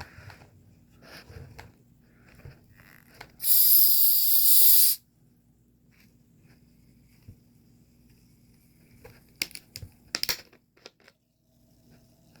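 A Coca-Cola being opened: a loud burst of hiss from the escaping carbonation, about a second and a half long, a few seconds in. A few sharp short clicks follow near the end.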